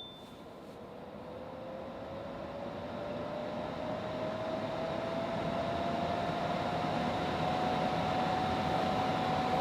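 Winix 5300-2 True HEPA air purifier's fan spinning up to its fourth, highest setting: a steady rush of air that grows louder over about six seconds, with a whine that rises in pitch and then holds steady.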